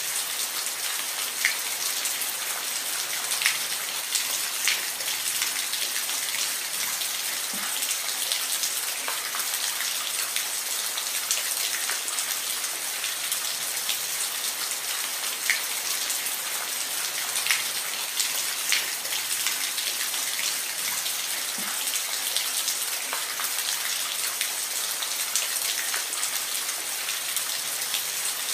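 Steady rain, an even hiss with individual drops ticking sharply on a nearby surface every second or two.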